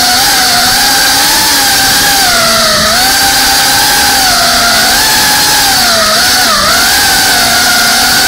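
FPV quadcopter's brushless motors and propellers whining, heard through the drone's onboard camera, with the pitch rising and falling as the throttle changes.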